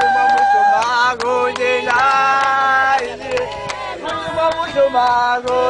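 A group of men and women singing a praise song together in long held notes, with hand clapping keeping a steady beat of about three to four claps a second.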